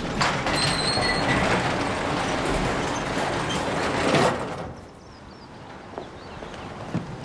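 Overhead garage door being pushed up along its ceiling tracks, a long rattling slide of about four seconds that stops once the door is fully open.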